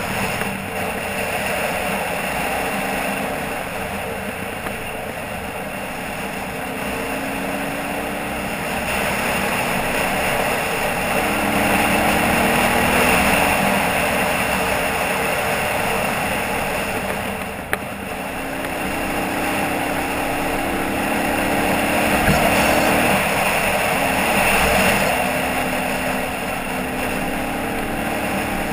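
Dual-sport motorcycle engine running while riding a dirt road, its pitch rising and falling with the throttle over steady wind and road noise, with a single sharp click about two-thirds of the way through.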